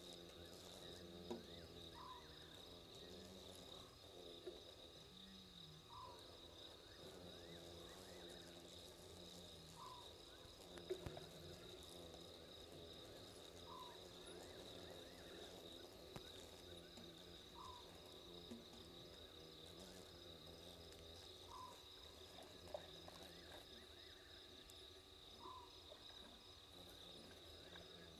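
Faint night chorus of crickets: a steady high-pitched trill, with a short call repeating about every four seconds and a single soft tap partway through.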